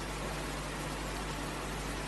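Steady hiss with a low, even hum underneath: the background noise of a talk recording during a pause in speech.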